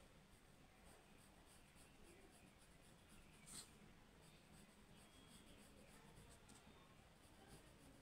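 Faint scratching of a pencil drawing lines on paper, with one slightly louder stroke about three and a half seconds in.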